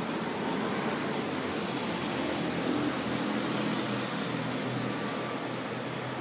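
Steady background hum of motor vehicle engines, swelling slightly a second or so in and easing off after about four seconds.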